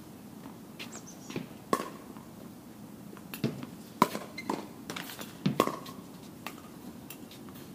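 Tennis balls struck by rackets and bouncing on a hard court: a string of sharp pops at irregular intervals, the loudest about four seconds in.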